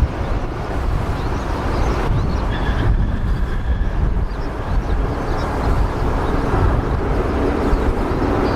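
Strong gusty wind buffeting the microphone, with the jet engines of a Delta Boeing 767 landing in the gale heard beneath it. A faint high whine comes and goes a few seconds in.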